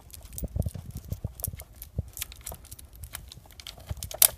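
Small clicks and rattles of a cable gun lock and its padlock being handled on a handgun, with one sharp, loud click near the end as the lock snaps shut.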